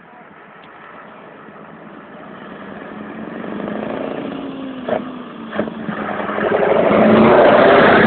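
A Scania 143H 420 truck's V8 diesel engine running as the tractor unit and container trailer approach and pass close by. It grows steadily louder throughout and is loudest near the end.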